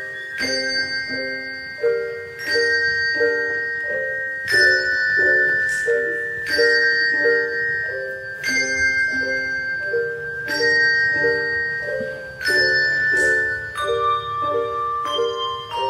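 Handbell choir playing a tune: struck bell notes in a steady rhythm, lower notes about three a second under higher notes that ring on for a second or two each.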